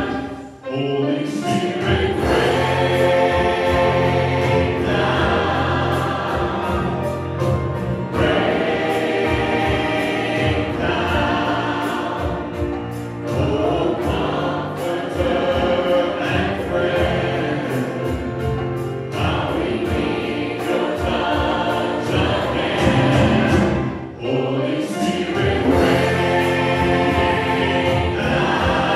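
Praise team singers on microphones and a choir singing a gospel worship song, backed by a live praise band with a steady beat and bass line.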